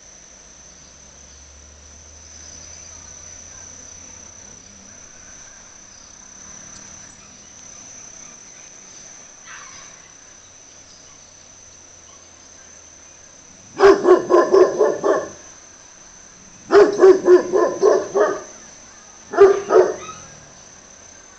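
A dog barking in three quick bouts of rapid, evenly spaced barks, the first starting about two-thirds of the way through, after a long faint stretch. A steady high insect trill runs underneath.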